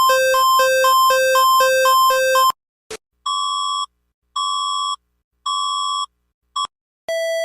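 Electronic emergency alert tones: a two-pitch alarm switching between a low and a high tone about twice a second, cut off suddenly about two and a half seconds in. After a click, a single-pitch beep repeats about once a second, four times, the last one cut short. Near the end a lower beep begins.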